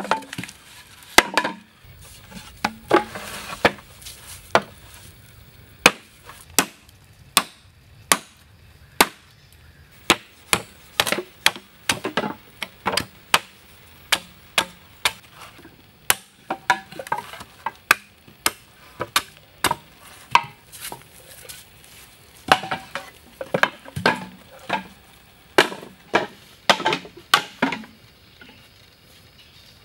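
A machete chopping green bamboo against a wooden log: dozens of sharp, irregular chopping knocks, about one to two a second, with short pauses.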